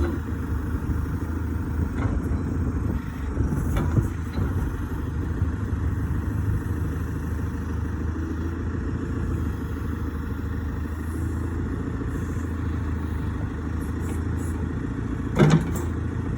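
JCB 3CX loader backhoe's diesel engine running steadily at low revs, with a couple of light clanks early on and a louder sharp knock near the end.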